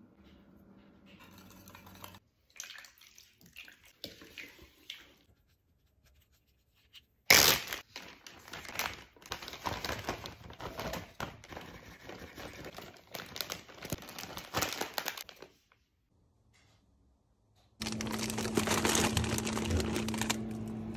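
Plastic zip-top freezer bag crinkling and rustling while chopped bell peppers and other vegetables are tipped into it from a bowl, starting with a loud crackle. Before it come faint knife clicks and scrapes. Near the end there is a freezer's steady hum with a low tone.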